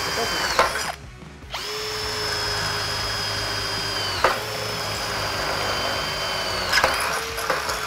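Bosch GSB 18V-50 cordless drill running at a steady whine while drilling through 14-gauge (2.6 mm) metal tube. It stops briefly about a second in and starts again, and its pitch dips sharply twice.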